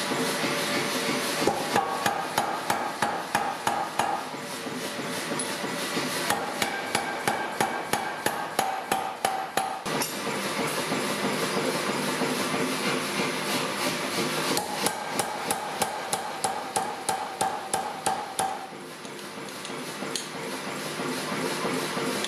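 Power hammer striking hot steel through a set-down tool, drawing down tong reins: three runs of rapid blows, about five a second, with short pauses between, over a steady background hiss.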